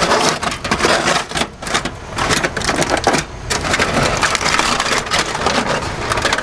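Heavy-duty aluminium foil crinkling and crackling in an irregular run as a foil-wrapped rack of smoked beef short ribs is handled and opened.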